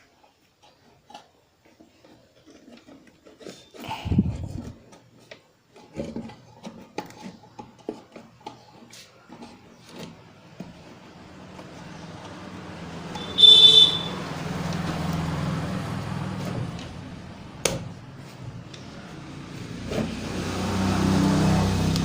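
Scattered light clicks and knocks of parts being handled, then a motor vehicle's engine swelling and fading twice, with a short horn honk about halfway through and a sharp click a few seconds later.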